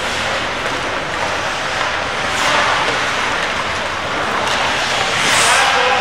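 Ice hockey rink ambience during play: a steady hiss of skates on the ice, with faint shouts from players and spectators near the end.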